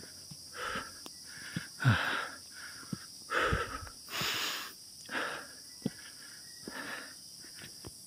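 Hard panting of a hiker climbing steep stone steps, out of breath and unused to the climb, one heavy breath about every second, unevenly spaced, with a few faint clicks.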